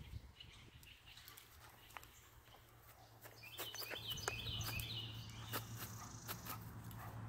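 Faint outdoor ambience: a bird chirps a quick series of high notes about halfway through, while a low steady hum sets in, with scattered light clicks and footsteps.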